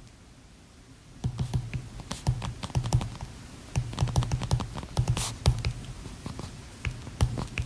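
Typing on a computer keyboard: a quick, irregular run of key clicks with soft thuds, starting about a second in.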